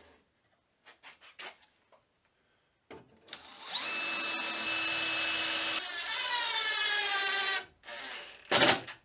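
Cordless drill running for about four and a half seconds as it drills a screw hole for the upper linear bearing rail, its whine rising in pitch in the last part. A short, loud burst from the impact driver follows near the end.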